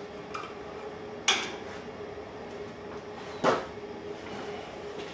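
Three sharp knocks and clinks as things are handled and set down on a workshop bench, the two loudest a little over a second and about three and a half seconds in. A steady faint hum runs under them.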